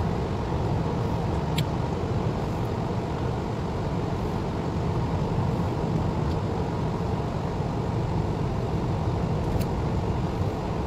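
Steady road noise heard inside a moving car's cabin: engine and tyres running at an even cruising speed, with a couple of faint clicks.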